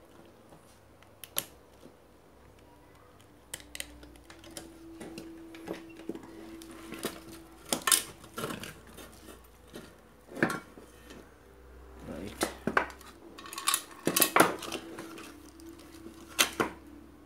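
Small metal tools clicking and clinking irregularly against a computer power supply's circuit board while a capacitor is being removed, with a faint steady hum that comes and goes.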